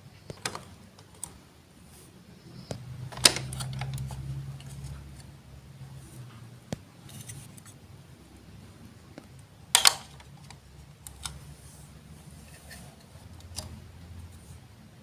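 Hard plastic Lego Duplo pieces clicking and knocking. There are two sharp, loud knocks, about three seconds in and near the middle, and scattered lighter clicks between them. A low rumble runs for a couple of seconds after the first knock.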